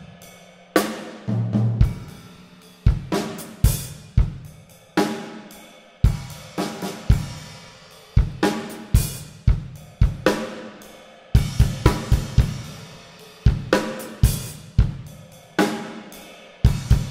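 Solo drum kit played with sticks: separate strikes on snare, toms and bass drum, each with cymbals crashing and ringing on. A quick run of hits comes about eleven to twelve seconds in.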